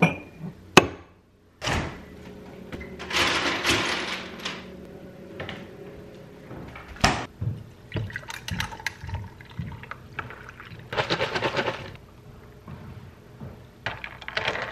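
Drink being made in a glass: a glass clinks as it is taken out, then liquid pours over ice in several short pours, and near the end a spoon stirs, rattling the ice against the glass in quick clicks.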